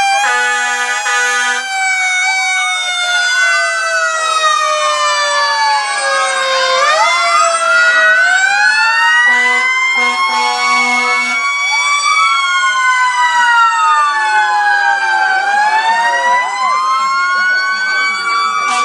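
Several fire engine and ambulance sirens wailing at once, their pitches sweeping up and down out of step with each other. A steady horn blast sounds at the start and another about halfway through.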